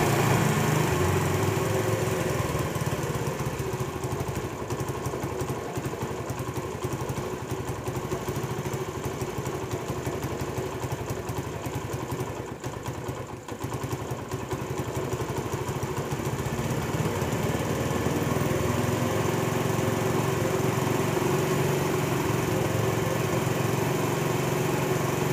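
Honda CD70 motorcycle's single-cylinder four-stroke engine idling while the carburetor's idle screw is turned to bring down a fast idle. It slowly gets quieter, dips about halfway through, then picks up and settles into an even, steady idle.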